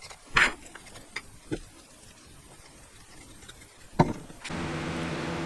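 A few light taps and knocks, then about four seconds in a click and a steady hiss of an aerosol can spraying polyurethane finish.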